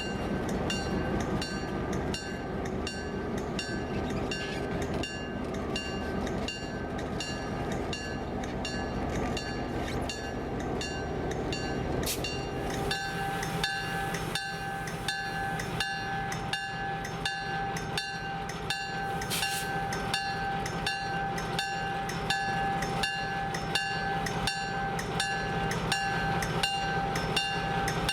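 EMD GP7 diesel locomotive with its 567B engine running as it hauls a train, with sharp regular clicks about twice a second. A steady tone comes in about halfway through.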